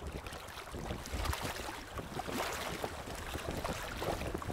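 Gusty wind buffeting the microphone over choppy lake water slapping against a floating dock.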